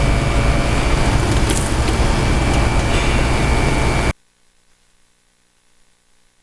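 Machinery running steadily with a deep rumble and a thin high whine, cutting off abruptly about four seconds in, leaving near silence.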